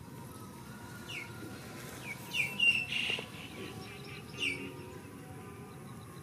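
A handful of short, high-pitched chirping calls, most of them sliding down in pitch, the loudest and longest about three seconds in.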